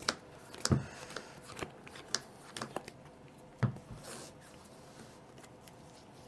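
Playing cards being handled on a tabletop: a scattering of sharp snaps and soft taps, with two firmer thuds, one under a second in and one near the middle.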